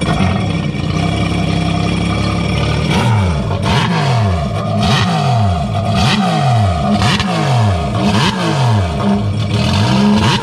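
Yamaha TR-1 Superjet stand-up jet ski's three-cylinder four-stroke engine running through an aftermarket exhaust. It runs steadily for about three seconds, then the revs swing up and down over and over, about once a second.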